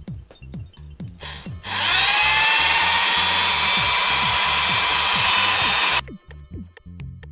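Handheld corded electric drill with a 1.5 mm bit spinning up and running steadily for about four seconds, drilling a small pin hole into a plastic glove-box latch part, then stopping abruptly. Electronic background music with a steady beat plays throughout.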